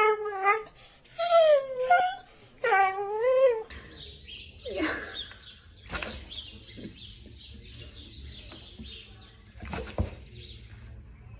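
A dog giving drawn-out, sliding whining howls, several in a row. These give way to quieter rustling and a few knocks as a husky noses at a cardboard treat box, with one sharp knock near the end.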